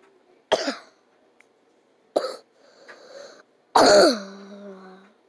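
A person coughing three times, about a second and a half apart. The last cough is the loudest and trails off into a falling voiced sound, held low for about a second.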